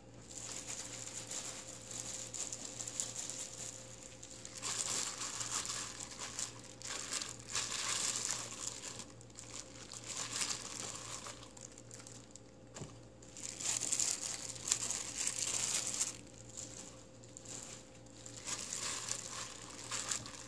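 Thin disposable plastic glove crinkling in irregular bursts as the gloved hand dips and presses seasoned perilla leaves into a bowl, with short quieter pauses between handfuls.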